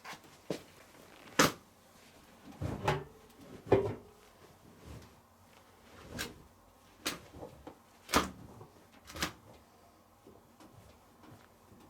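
Irregular clicks and knocks of a front-loading washing machine's door and drum being handled by hand, with a few duller thuds among them; the loudest knocks come about a second and a half in and about eight seconds in.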